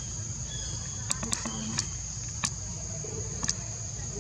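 Steady high-pitched insect drone, typical of cicadas or crickets, with a low rumble underneath and about five short sharp clicks or snaps scattered through the middle.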